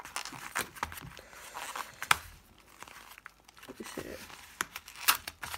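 Yellow padded mailer envelope being torn open by hand: irregular crinkling and ripping of paper, with several sharp rips, the loudest about two seconds in.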